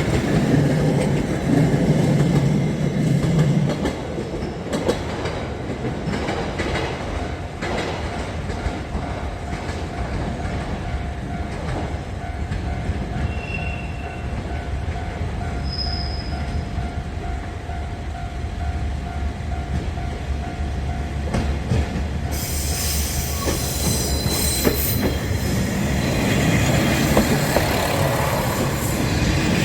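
JR trains on the move: a commuter train's wheels rumbling over the rails at first, then a steady low drone with a thin wheel squeal as a KiHa 47 diesel railcar moves. The rail noise swells again near the end.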